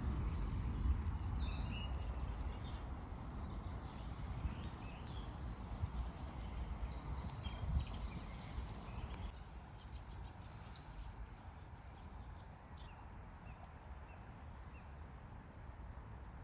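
Several small songbirds singing and chirping, with a quick run of about six repeated whistled notes around the middle, over a low steady rumble that fades gradually.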